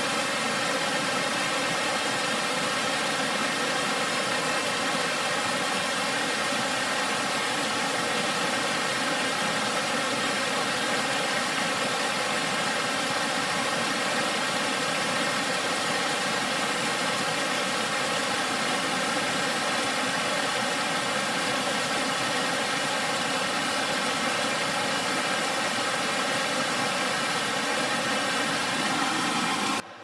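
Steady rushing of a cascading multi-tiered waterfall, a constant loud roar of falling water, cutting off abruptly at the very end.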